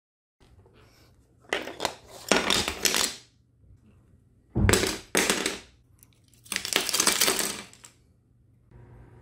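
3D-printed plastic crossbow parts dropped onto a hardwood floor, clattering and bouncing in three bursts as they land.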